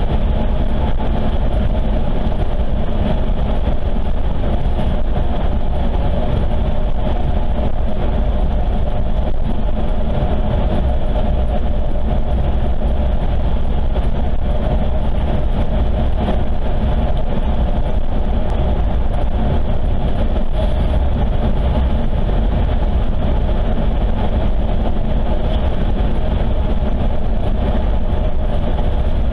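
Car driving at highway speed: steady road and engine noise, strongest in the low rumble, with no change in level.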